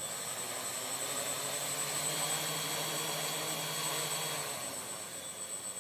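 Electric motors and rotors of a custom four-engine radio-controlled helicopter running with a steady hum and a faint high whine, winding down about four and a half seconds in.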